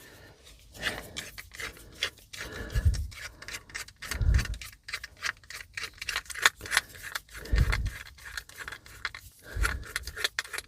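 Tools and small parts being handled: irregular clicks, rubbing and scraping, with four dull thumps spread through.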